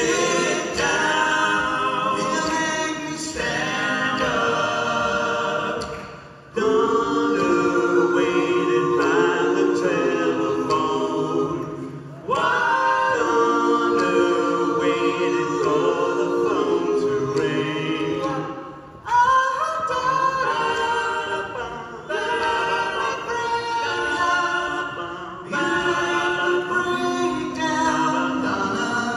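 Four male voices singing close harmony a cappella, with no instruments, in sung phrases of several seconds separated by brief pauses.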